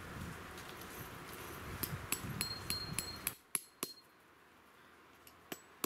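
Hammer striking a tent peg into gravelly ground: a quick run of sharp clinks, some with a short metallic ring, starting about two seconds in, then a few more strikes near the end. This is the pegging-out of a large canvas bell tent.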